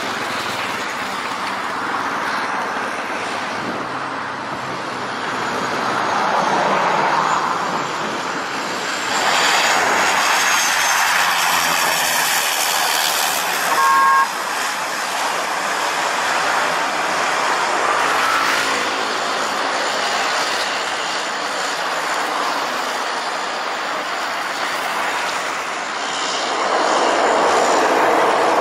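De Havilland Canada DHC-6 Twin Otter turboprops passing low on approach and landing, their propellers and engines swelling and fading with each pass, over road traffic noise. A short horn toot sounds about halfway through.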